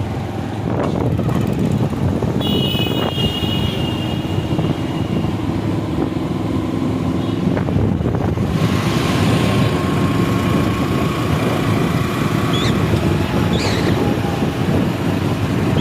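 Road traffic heard from a moving vehicle: a steady engine and road rumble, with a vehicle horn tooting briefly about three seconds in.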